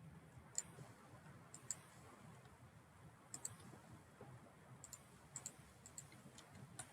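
Computer mouse clicking: about a dozen short, sharp clicks, several in quick pairs like double-clicks, over faint low room noise.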